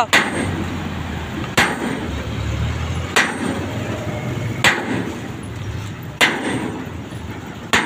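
Sledgehammer blows on steel, five sharp clanging strikes about a second and a half apart.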